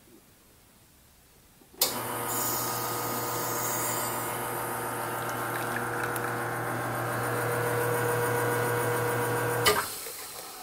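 Nuova Simonelli espresso machine pulling a shot: its pump switches on about two seconds in and runs with a steady hum and hiss as the espresso pours, then cuts off near the end.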